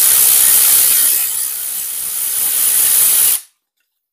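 Compressed-air tool running: a loud, steady hiss of air with a faint rattling whir underneath. It dips slightly in the middle and cuts off abruptly about three and a half seconds in.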